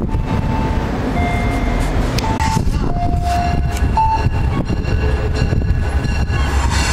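Diesel passenger trains at a station platform: a steady, loud low rumble of engines running, with a few short steady tones at shifting pitches in the first few seconds.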